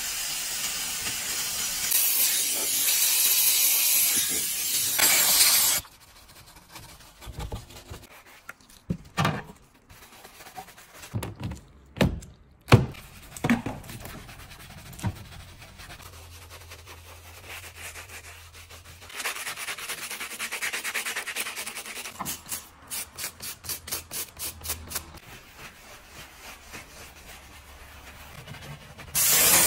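Steam cleaner jet hissing for about the first six seconds, then a detailing brush scrubbing foamed cleaner on plastic trim and headliner: irregular rubbing strokes and knocks, with a run of quick even strokes later on. A short, loud hiss comes near the end.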